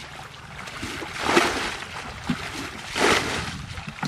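Water sloshing and splashing in a slow rhythm, two swells about a second and a half apart.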